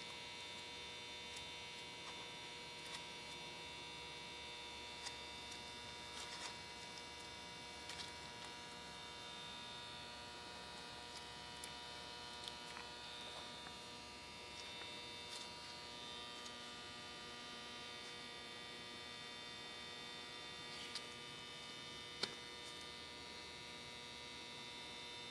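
Steady electrical hum made of several fixed tones, with faint, scattered light clicks and taps now and then.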